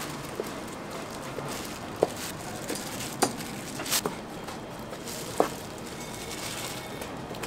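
Kitchen knife slicing sundae (Korean blood sausage) on a plastic cutting board: a few sharp, irregularly spaced taps of the blade striking the board, the loudest about two, three and five and a half seconds in.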